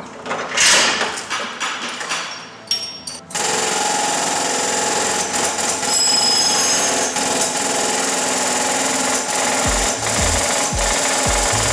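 A few knocks and clatters, then about three seconds in a loud, steady, crackling noise of metalwork on a car body starts suddenly and holds, with low thumps near the end.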